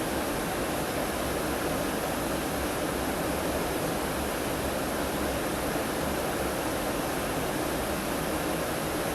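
Steady, unbroken rushing of river water.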